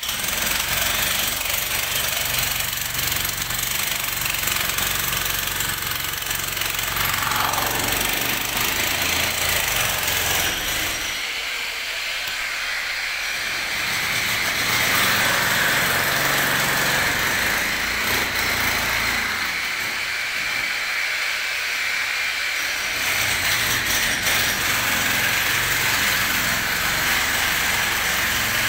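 A motor running steadily under a strong hiss, starting abruptly. The low rumble eases twice while the hiss carries on.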